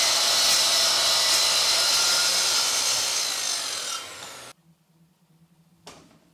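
Festool TS 75 EQ plunge track saw cutting through a walnut board along its guide rail; the cut eases off and stops about four and a half seconds in. A single knock follows near the end.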